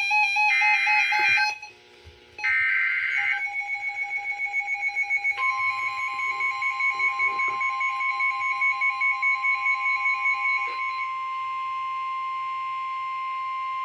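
Weather-radio emergency alert sequence ahead of a severe thunderstorm warning. It opens with short screechy data bursts of the alert header, then a rapid pulsing beep. About five seconds in, the steady warning alert tone joins in, and it carries on alone once the beeping stops, around eleven seconds in.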